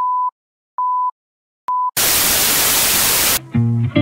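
Film countdown leader sound effect: three short, steady beeps of the same pitch, a little under a second apart, the last one shorter. Then comes about a second and a half of loud static hiss that cuts off sharply, and intro music starts near the end.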